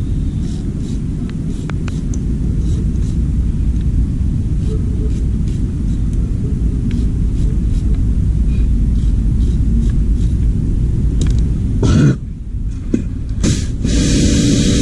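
Steady low machine rumble with faint light ticks, then a sudden loud knock about 12 s in; about a second before the end a loud, even hiss of high-pressure spray starts.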